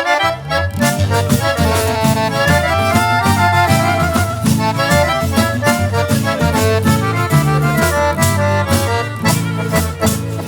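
Folk ensemble playing an instrumental passage of an Albanian folk song: a fast accordion melody over a steady, driving beat of bass and drums.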